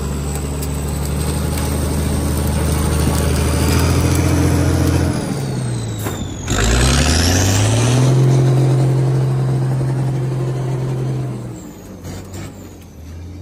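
Heavy diesel vehicle's engine running under load through wet ground: it holds a low steady note, dips about five seconds in, then climbs to a higher note and holds it before dropping away near the end. A high whine falls and rises along with the engine.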